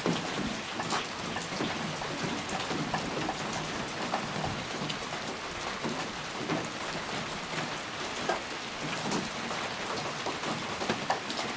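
Steady rain falling on a surface, an even hiss with many separate drops pattering through it.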